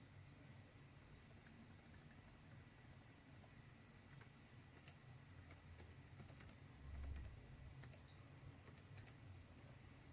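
Faint, scattered clicking of a notebook computer's keyboard keys, with a couple of soft low thumps about seven and eight seconds in.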